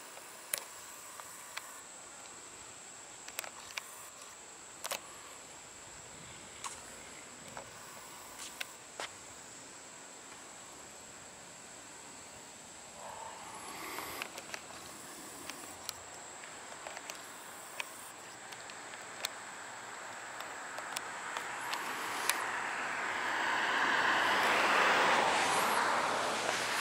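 Street ambience with scattered light clicks of footsteps and handling of a handheld camera, and a car passing near the end, its noise swelling, then easing off.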